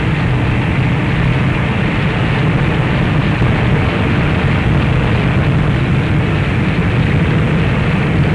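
Steady drone of massed engines under heavy hiss, recorded on an old 1930s newsreel soundtrack.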